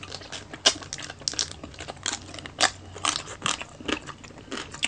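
Close-up chewing and crunching of roast lechon, crisp pork skin and rib meat bitten and chewed in an irregular run of short crackles, about three or four a second.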